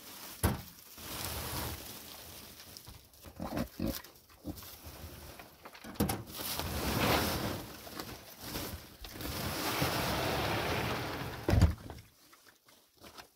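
A large woven plastic sack rustling and crackling as it is opened, pressed and shaken out on a wooden table, with a few pig grunts. There is a sharp knock about half a second in and a thump near the end.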